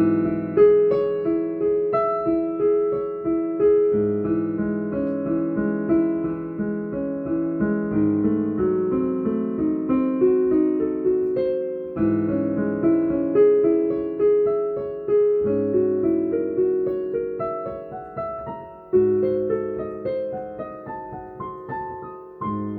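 Piano playing a steady flow of broken chords, each note struck and ringing as it fades.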